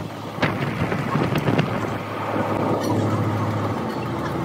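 A machine motor humming steadily, with several sharp knocks in the first two seconds.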